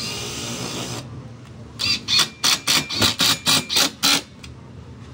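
Makita TD110D 12 V cordless impact driver driving a screw into a wooden tabletop. It runs steadily until about a second in, then after a short pause is driven in about eight quick bursts, a few per second, between two and four seconds in.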